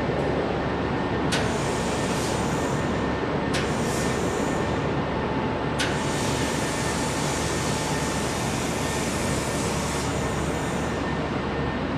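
Handheld fibre laser welding machine and its water chiller running with a steady hum, with three sharp clicks about two seconds apart, each followed by a hiss; the last hiss lasts about four seconds. The clicks and hisses are the welding gun being triggered.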